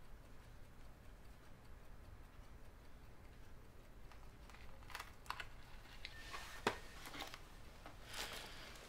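Faint room tone, then from about five seconds in a few light clicks and rustles of a small cardboard box being handled, the loudest a single sharp click near seven seconds.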